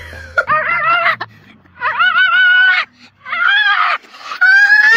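A dog howling in four high, wavering calls, each about a second long and rising in pitch as it starts.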